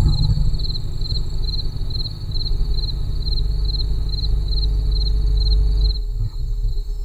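Low, steady rumble of a vehicle on the move, with an insect chirping high-pitched in an even rhythm, a little over two chirps a second.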